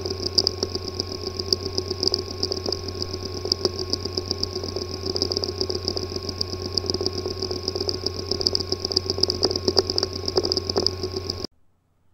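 Hard disk drive with a physically damaged disk assembly running abnormally: a steady buzzing hum and high whine with fast, irregular ticking over it, the kind of clicking and buzzing that signals damaged heads or platters. It cuts off shortly before the end.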